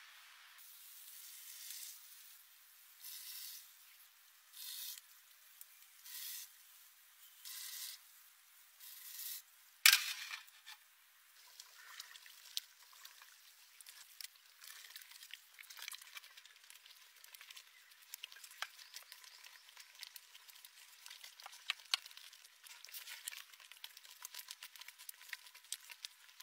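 Minced chicken kabab mixture being squeezed and kneaded by hand in a glass bowl: soft squishing with many small crackles and clicks. Before it come short soft hisses about every second and a half, then a single sharp clack about ten seconds in.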